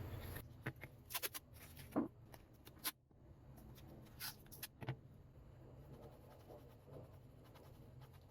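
Faint scattered clicks and light knocks of small objects being handled, about half a dozen in the first five seconds, then only faint room hum.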